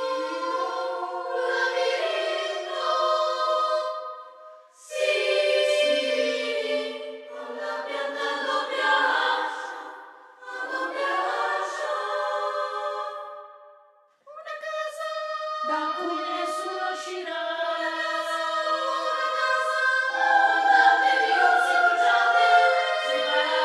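Children's choir singing held notes in several parts at once. The phrases break off briefly about 5, 10 and 14 seconds in.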